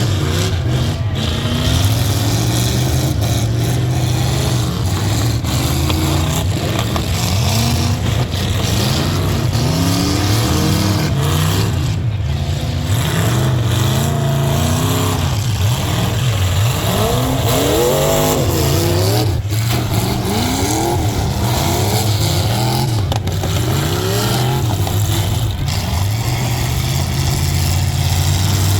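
Several demolition derby trucks' engines revving at once, their pitches repeatedly climbing and falling as they accelerate and back off, over a constant low rumble.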